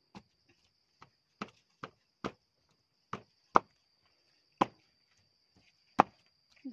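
Wooden pestle pounding chilies and kencur into sambal in a coconut-shell mortar: about ten sharp, uneven knocks, a few of them louder than the rest.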